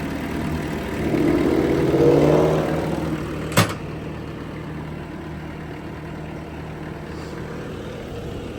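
Bobcat T630 skid steer's diesel engine idling steadily and sounding clean, with no lifter tick or rod knock. A rising tone swells about a second in and fades by three seconds, and a single sharp clank comes at about three and a half seconds.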